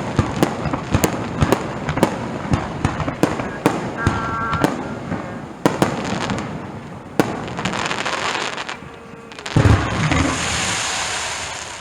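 Fireworks display: a rapid run of bangs and crackles from shells bursting overhead, thinning out after about six seconds, then a single heavy boom near the end followed by a long crackling rumble.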